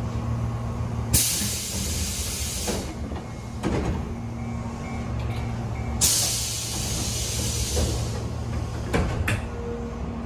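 Pneumatic sliding doors of a Tobu 8000 series commuter train: a sharp hiss of air about a second in as the doors slide open, then another hiss about six seconds in as they slide shut, with a few knocks as the leaves stop and close. A steady low hum from the stationary train runs underneath.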